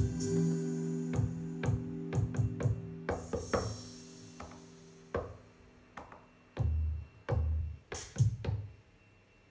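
Electronic beat from a Native Instruments Maschine Studio: drum hits over held synth notes that fade away in the first few seconds, then about six separate drum and bass hits played from the pads.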